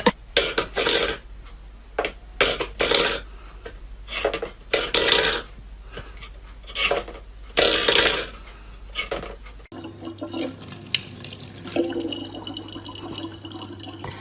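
Water from a tap splashing into a sink. For about the first ten seconds it comes in irregular splashes, then after a cut there is a steadier running stream.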